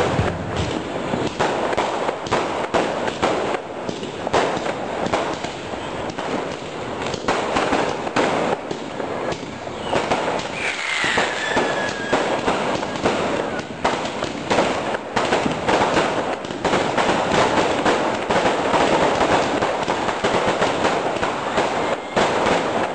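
Diwali fireworks and firecrackers going off in dense, continuous crackling and popping. A short falling whistle sounds about halfway through.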